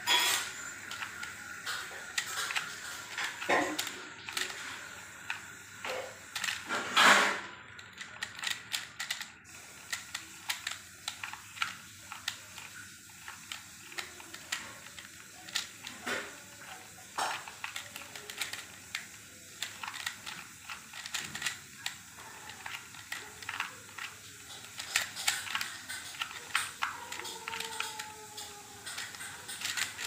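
Plastic Pyraminx (pyramid twisty puzzle) being turned rapidly by hand: an irregular run of light clicks and clacks as its faces and tips are twisted, with one louder, half-second noise about seven seconds in.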